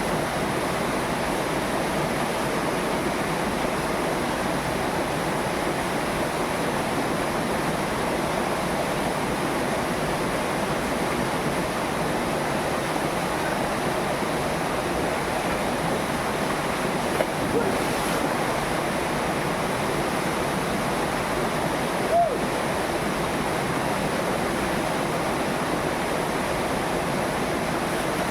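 Waterfall water rushing steadily over a rock cascade, with two brief, slightly louder sounds a little past the middle.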